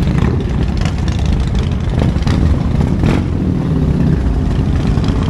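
A vehicle engine running at idle, a steady low rumble with a few brief swells.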